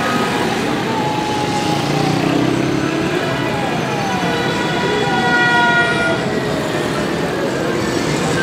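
Heavy road traffic of vans, cars and motorcycles running past, with vehicle horns sounding: short falling toots early on and one longer horn blast about halfway through.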